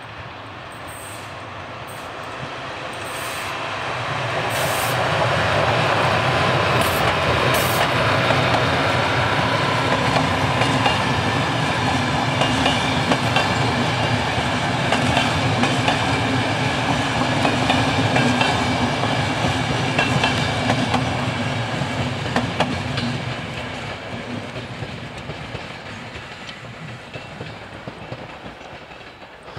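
Class 242 electric locomotive hauling passenger carriages passing by: the rumble of the wheels on the rails builds as the train nears, holds as the carriages go past, then fades as it pulls away. A few sharp high clicks sound during the approach.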